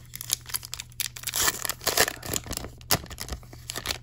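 Baseball card pack wrapper being torn open by hand: a run of crinkling and ripping, loudest about one and a half to two seconds in.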